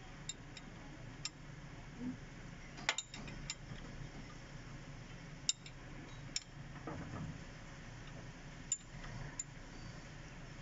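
Scattered light metallic clicks and clinks, a few close together about three seconds in and single ones after, over a faint low steady hum.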